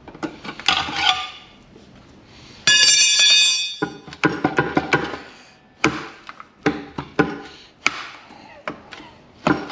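Metal clanks and knocks of tools working at a stuck intake manifold on a small-block Chevy 350. About three seconds in there is a loud, high-pitched screech that lasts about a second and cuts off sharply.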